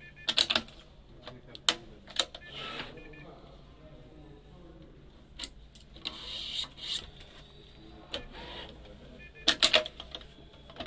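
Badminton racket being strung on a stringing machine: string pulled through the frame in short swishes, with sharp clicks and taps from the machine and frame, a quick cluster of them near the end. A steady low hum sits underneath.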